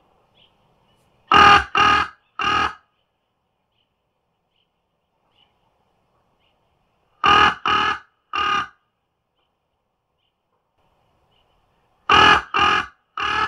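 A crow cawing in sets of three harsh caws in quick succession. The sets come about a second and a half in, again about five seconds later and again near the end.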